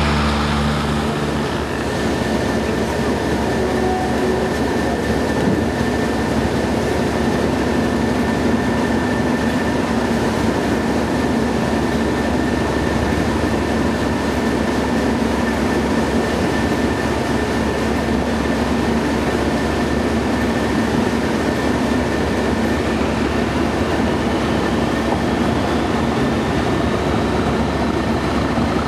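English Electric Class 37 diesel locomotive 37706, its V12 engine working hard to pull the train out of the station. The engine noise is steady, with a constant high whistle over it, and a second whine climbs in pitch over the last several seconds as the locomotive works up.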